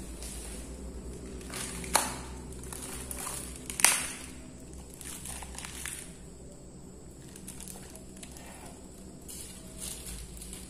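Close-miked eating and handling sounds: a thin plastic drinking cup and the paper food wrapping crinkling as they are handled, with two sharp, loud crackles about two and four seconds in and softer rustling later.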